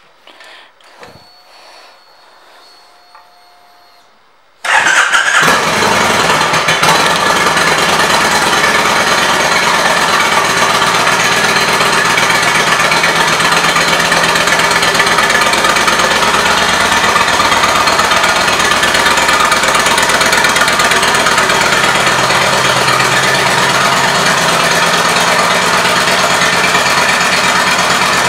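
Kawasaki Vulcan 1600 Nomad trike's V-twin engine starting about five seconds in, catching at once and then idling steadily.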